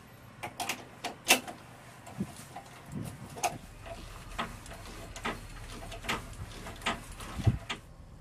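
Irregular metallic clicks and knocks of hand tools, a wrench among them, on the fittings under an F-16 as ground crew fasten hardware; one heavier thump near the end.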